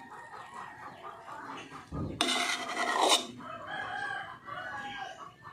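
A rooster crows about two seconds in, harsh at the start and then drawn out, with chickens clucking around it.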